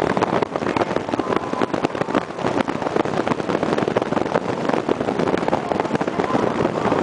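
Loud, crackling road and wind noise from a vehicle moving along a street.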